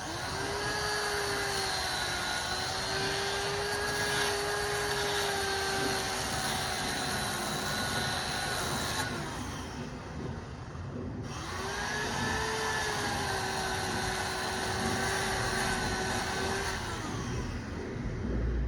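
Chainsaw running at high revs as it cuts into a tree trunk. It eases off for about two seconds near the middle, then revs up again for a second long cut and drops back near the end.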